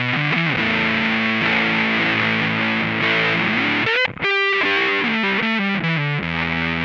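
Electric guitar through an Electro-Harmonix Big Muff Pi fuzz pedal, with tone and sustain turned full up, playing thick, sustained fuzz notes. Just before the middle a note slides up in pitch. Then, after a brief cut, a single note is held ringing before the notes change again.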